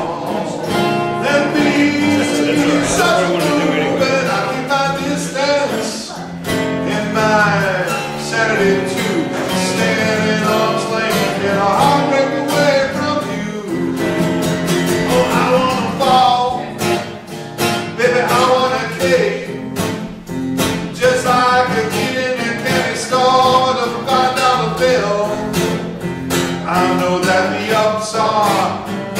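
A man singing a folk song while strumming an acoustic guitar.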